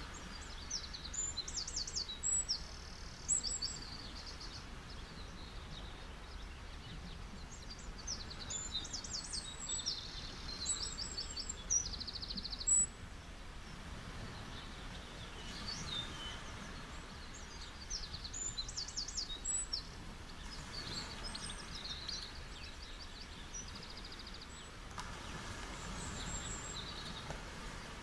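Small birds chirping and trilling in quick high bursts, coming and going several times, over a steady background wash of surf.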